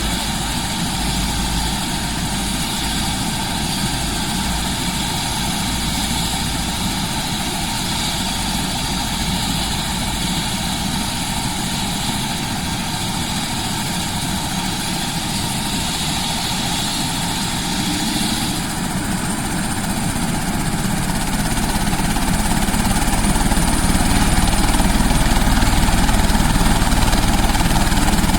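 Helicopter running, a steady engine and rotor drone that grows louder about three quarters of the way through.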